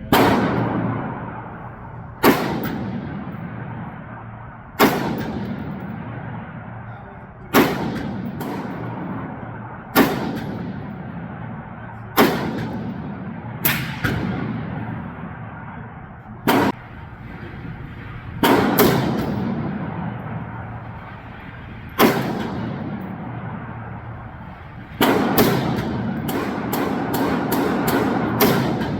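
AR-15 rifle firing single aimed shots, one every two to three seconds, each crack followed by a long echoing tail; near the end about seven shots come in quick succession.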